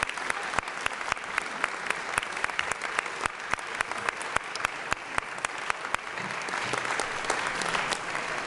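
Audience applauding, with the sharp claps of one nearby clapper standing out at about four a second; the applause swells a little near the end.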